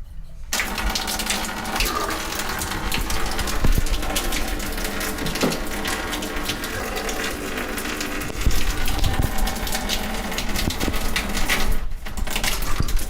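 Shower water gushing from a bare shower arm with no head fitted, turned on about half a second in and shut off suddenly near the end: a leak test of the new arm's taped threaded joint.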